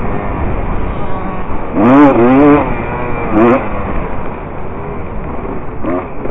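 Dirt bike engine being ridden hard on a dirt motocross track, heard from the onboard camera over heavy low rumble. The engine note climbs and wavers as the throttle is worked, most strongly about two seconds in and again briefly past the three-second mark.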